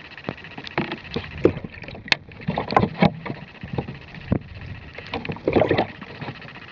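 A cat's paw splashing and sloshing the water in a plastic minnow bucket, heard from inside the bucket. Irregular splashes and sharp clicks come in two busier spells, about two and a half to three seconds in and again around five and a half seconds.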